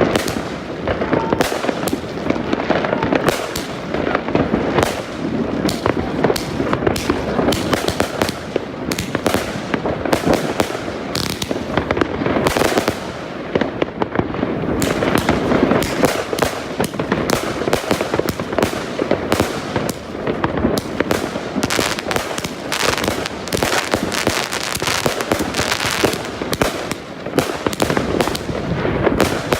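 Consumer firework cake firing a rapid barrage, a dense run of sharp cracks and bangs that comes thick and fast, with hardly a gap between shots.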